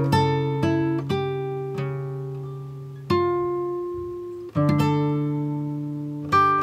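Background music: acoustic guitar playing slow plucked chords that ring and fade, each new chord struck every second or two.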